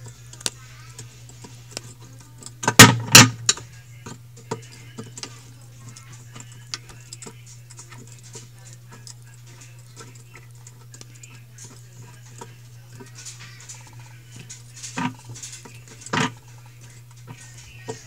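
Phillips screwdriver turning and tightening the metal central screw of a washing machine's plastic agitator: scattered small clicks and scrapes, a louder clatter about three seconds in and a few knocks near the end, over a steady low hum.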